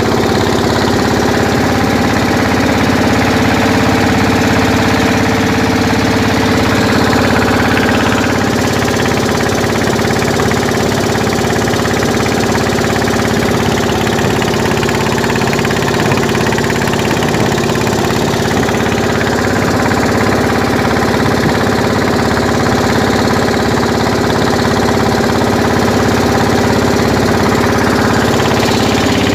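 Engine of a pompong fishing boat running steadily, at an even pitch throughout.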